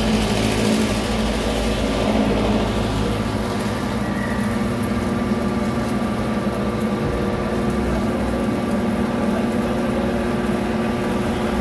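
Cylinder-head surface grinder resurfacing a Mitsubishi 4M40 cylinder head: a steady machine hum with several constant tones, and the hiss of the large grinding wheel cutting the head's face under coolant spray. The hiss is strongest in the first few seconds, then dies down.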